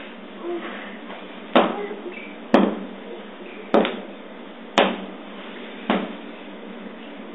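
A shoe slapped down on a tile floor five times, about once a second, as a child swats at ants.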